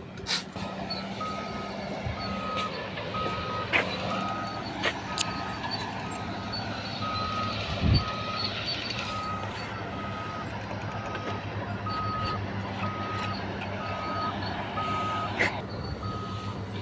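A vehicle's reversing alarm beeps at an even pace, a little over one beep a second, over a steady low engine hum, and stops near the end. Occasional knocks and clicks come through, including a low thump about halfway.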